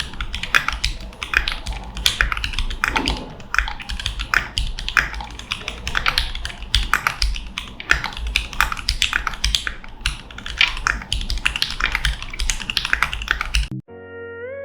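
Rapid typing on a Keychron 65% mechanical keyboard, a fast, dense flurry of keystroke clicks that stops abruptly near the end.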